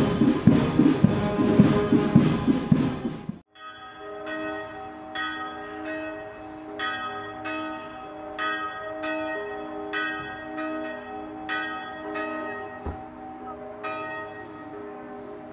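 Brass band music that cuts off abruptly about three seconds in, followed by church bells ringing: several bells struck in an uneven peal, each strike leaving a long hum.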